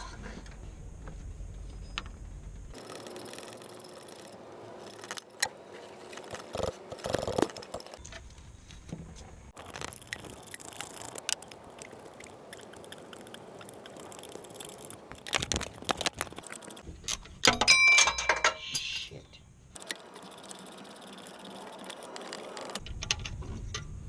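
Metal tools and parts clinking and rattling in short, irregular bursts, with one bright ringing metal clink about eighteen seconds in.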